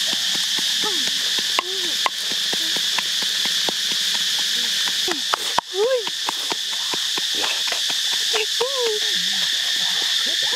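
Steady high-pitched insect chorus droning without a break. Scattered sharp clicks and a few short rising-and-falling calls sound over it, the strongest a little past the middle.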